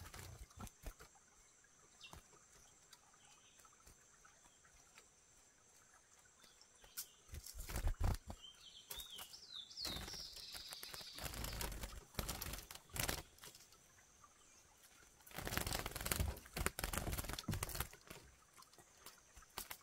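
Curiós (chestnut-bellied seed finches) fluttering and scrambling inside a wire trap cage, with a few short rising chirps about nine seconds in. Bouts of rustling and thumping follow, and the last of them comes as a hand reaches in to handle the cage.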